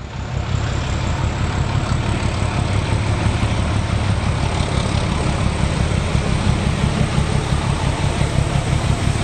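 Steady loud rumble of a running train, fading in at the start and cutting off abruptly at the end.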